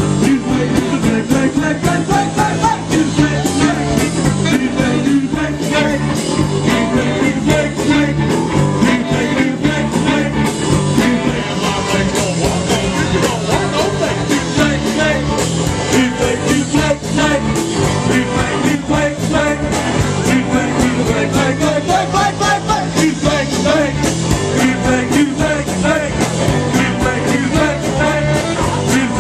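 Band music with a steady drum beat, a repeating bass line, guitar and a singing voice, playing without a break.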